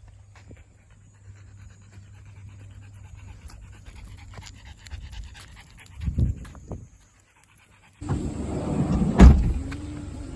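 Shiba Inu panting, with one sharp loud thump about a second before the end.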